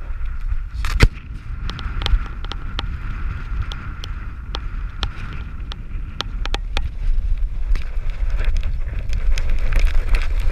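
Wind buffeting the microphone of a dog-mounted action camera as the dog moves over snow, with many irregular sharp clicks and crunches from its movement and harness.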